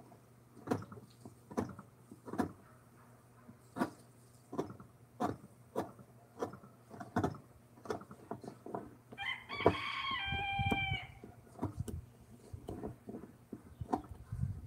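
A rooster crows once, about nine seconds in, over a run of irregular sharp knocks and taps.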